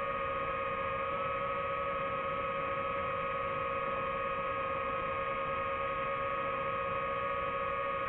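DJI FPV quadcopter's motors and propellers humming steadily at a constant pitch.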